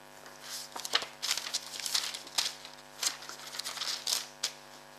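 Pages of a small hardcover Bible being handled and leafed through: a run of irregular dry paper rustles and flicks, over a faint steady electrical hum.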